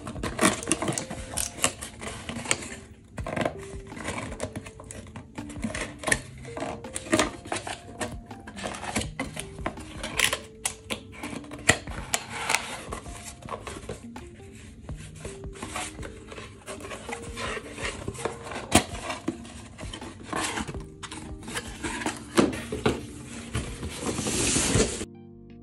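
Cardboard being handled and folded: a white corrugated mailer box is creased, tucked and pressed into shape by hand, giving many short crisp clicks, scrapes and rustles, with soft music playing underneath. The handling sounds stop just before the end, leaving only the music.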